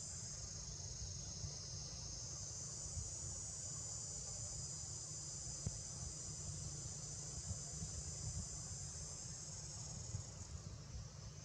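Steady, high-pitched drone of an insect chorus, with a low rumble underneath; the drone eases a little near the end.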